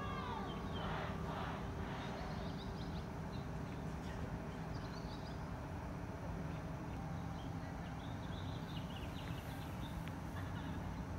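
Tower bells ringing out their last notes, which die away in the first second. Then a steady low outdoor hum with faint, scattered bird chirps.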